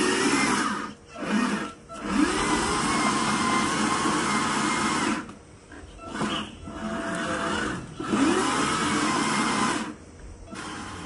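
Electric motor and gearbox of a wooden RC model Mercedes-Benz 2220 log truck whining under load as it crawls through mud. It comes in throttle stretches, rising in pitch each time it picks up again, with short breaks about one, two and five seconds in and again near the end.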